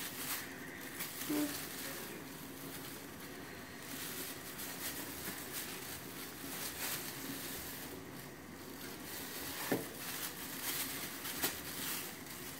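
Faint rustling and crinkling of a plastic bag as flour is shaken out of it into a plastic bowl, with a couple of light knocks near the end.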